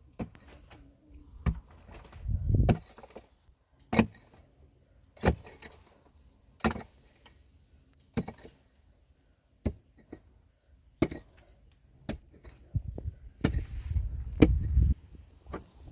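Repeated sharp blows, about one every second and a half, then a busier run of knocks and thuds near the end.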